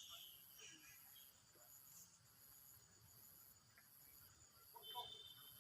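Insects, likely crickets, trilling faintly in a high-pitched, pulsing drone that repeats in short bursts of under a second.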